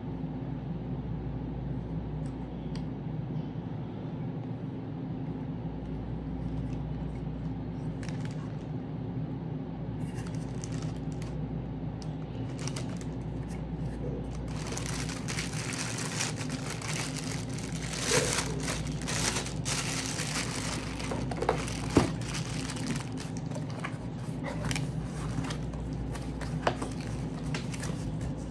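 Steady low hum. From about halfway through, packaging crinkles and rustles, with scattered sharp clicks, as a car speaker is unwrapped from its box.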